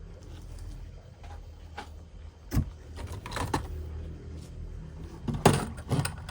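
Toy handling noise: scattered clicks and knocks of plastic toys being handled, over a low steady hum, with the sharpest knocks about two and a half seconds in and again about five and a half seconds in.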